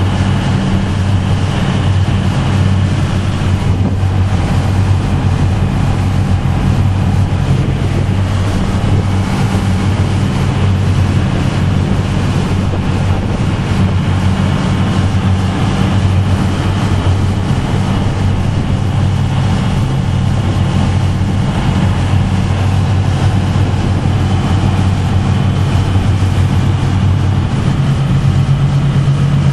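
Boat engine running steadily with a low hum, under wind on the microphone and water rushing; the engine's pitch shifts near the end.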